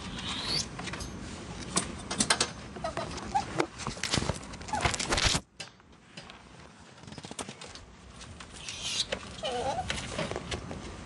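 Two ferrets play-fighting in a wire-panel cage: scuffling and clattering against the wire, with short dooking sounds and a couple of brief hisses. A dense burst of scuffling stops suddenly about halfway through.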